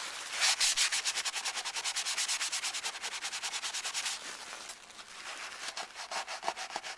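Paper towel rubbed briskly back and forth over the painted plastic hull of a model kit to wipe off a smudge of squadron putty. The strokes are rapid and even, about eight a second, and grow lighter after about four seconds.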